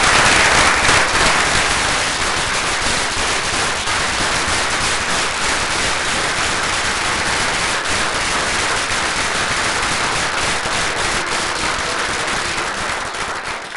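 A roomful of people applauding: dense, sustained hand-clapping that is loudest at first and eases off near the end.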